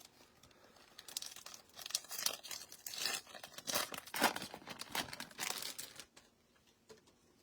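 Foil wrapper of a trading-card pack being torn open and crinkled, a dense run of crackling rustles that stops about six seconds in.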